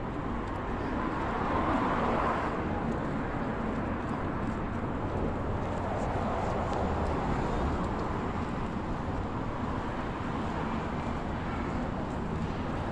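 Steady urban outdoor background noise, a constant wash of traffic-like noise with no distinct events, swelling slightly about two seconds in.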